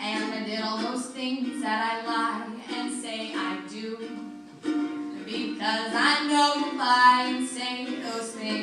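A woman singing while playing a ukulele.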